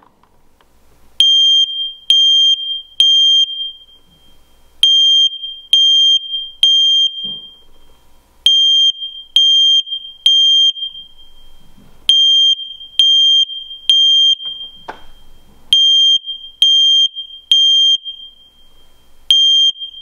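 FireX i4618 ionization smoke alarm sounding its test alarm: loud, high-pitched beeps in the temporal-three pattern, three beeps then a pause, repeating about every three and a half seconds, starting about a second after its test button is pressed. The First Alert alarms interconnected with it stay silent, not recognising the FireX's interconnect signal.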